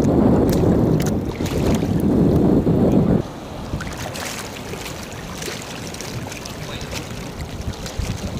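Wind buffeting the microphone, a loud low rumble for about the first three seconds that cuts off suddenly; after it, shallow seawater sloshing around wading legs with small splashes and trickles.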